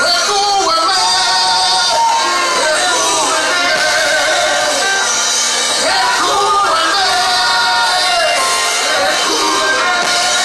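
Live gospel worship music: voices singing a melody over instrumental backing.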